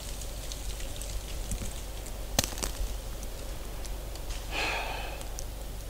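A short sniff through the nose, lasting under a second, about four and a half seconds in, over a quiet background with two faint clicks a little before it.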